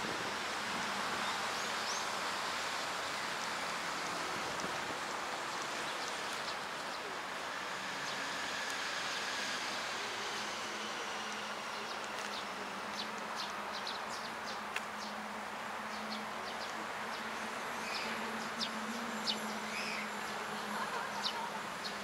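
Outdoor park ambience: a steady even hiss of background noise with a low steady hum, and many short high ticks scattered through the second half.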